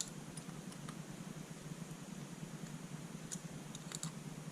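Scattered faint clicks of a hex driver and small screws on an aluminium beadlock RC wheel as the screws are given their final tightening, over a steady low hum.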